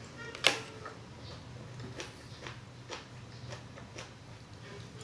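Metal spoon clinking against a ceramic plate: one sharp, ringing clink about half a second in, then several fainter ticks, over a faint low steady hum.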